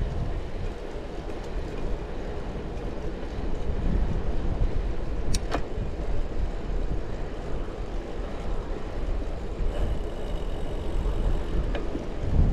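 Low, gusty rumble of riding a bicycle: wind on the microphone and tyres on the path, with two sharp clicks about five seconds in and another near the end.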